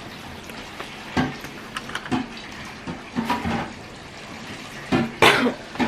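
Water running, with a few short knocks and a louder rush of water about five seconds in.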